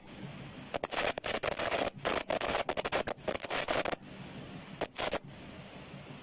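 Tape rewinding: a steady high whine and hiss, broken by two long stretches of rapid crackling chatter, about a second in and about two seconds in, then two short bursts near five seconds.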